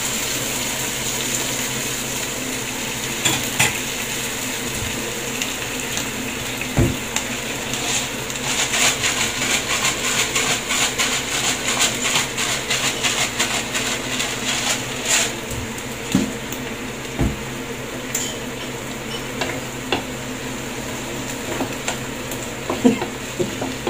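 Vegetables sizzling steadily in a nonstick frying pan over a gas flame, water just added to the stir-fry. A wooden spatula clicks and scrapes against the pan as the food is stirred, busiest in the middle, with a few soft knocks.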